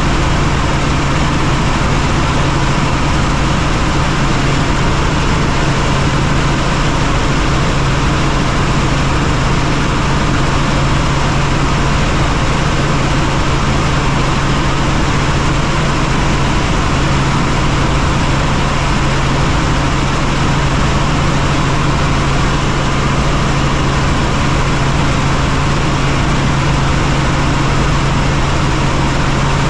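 Helicopter in flight: the steady, loud drone of its rotors and engine, with a strong constant low hum under a wide hiss.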